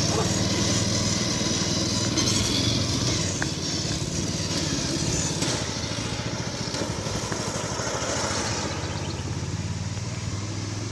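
Riding lawn mower engine running steadily as the mower drives off, its sound fading gradually as it moves away.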